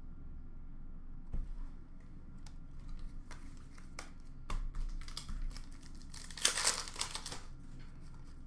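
Plastic wrapper of a 2020-21 Upper Deck Extended hockey card pack crinkling and tearing as the pack is handled and opened, with scattered light clicks and taps of cards. The loudest crinkling comes about six and a half seconds in and lasts about a second.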